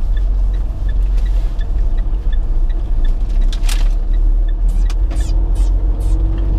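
Inside a moving car's cabin: a steady low rumble of engine and tyre noise while driving slowly. A faint quick ticking stops about three seconds in, and several brief hisses come in the second half.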